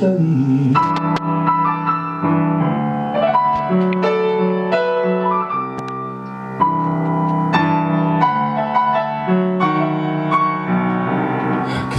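Instrumental break in a song: a piano-like keyboard melody played over held chords, with no singing.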